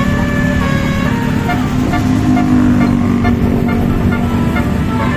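Multi-tone 'telolet' bus horn sounding a run of short notes at changing pitches over loud, steady traffic and engine rumble.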